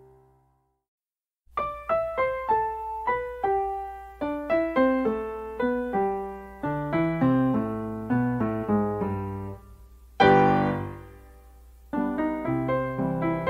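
Background solo piano music: a melody of single struck notes and chords that starts after about a second and a half of silence, with one loud chord about ten seconds in that slowly dies away before the next phrase begins.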